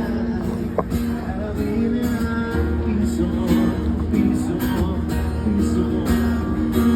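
Background music with acoustic guitar and some singing.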